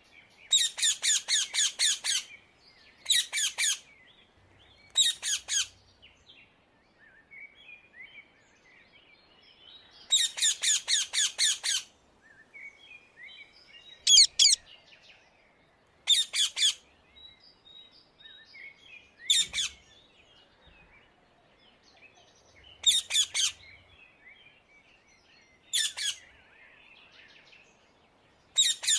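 Indian ringneck parakeets (rose-ringed parakeets) calling in repeated bouts of fast, shrill, screeching notes, several notes to a bout. Softer chattering runs between the bouts.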